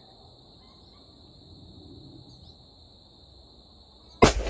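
Crickets chirping steadily, then about four seconds in a single loud shot from a CVA Optima .50 caliber muzzleloader, echoing briefly.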